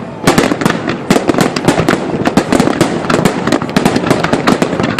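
Fireworks display: a loud, unbroken barrage of bangs and crackles, many per second.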